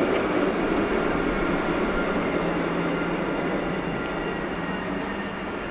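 A large vehicle passing on the street, a steady running noise with a faint whine that slowly fades as it moves away.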